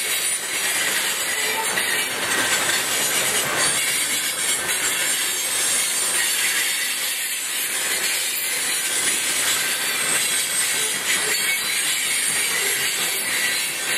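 Freight cars of a manifest train rolling past at speed: a steady, hissing rush of steel wheels running on the rails, with a few faint clacks.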